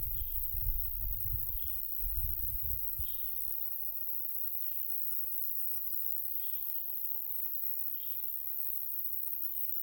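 A bird repeating a short high call about every one and a half seconds, over a steady high insect buzz. Wind rumbles on the microphone for the first three seconds, then eases.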